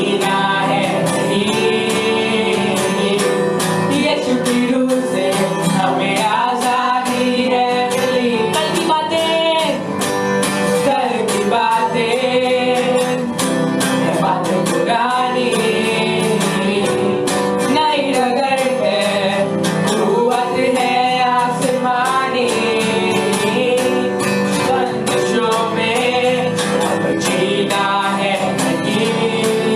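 Live worship music: a singing voice over a strummed guitar and band, at a steady loud level.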